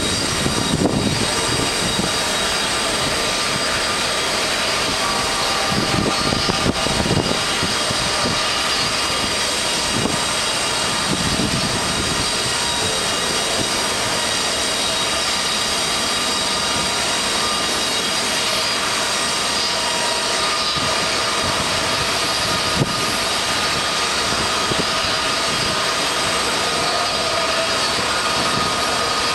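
Jet airliner engines whining steadily over a continuous rushing roar, with a few brief low rumbles in the first dozen seconds.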